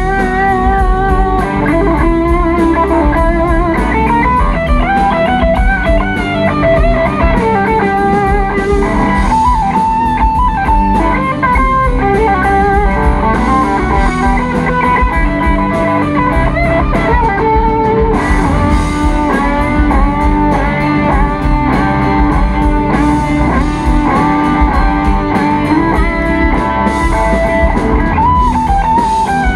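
Live rock band playing an instrumental stretch led by electric guitar, quick runs with bent, wavering notes over drums and bass.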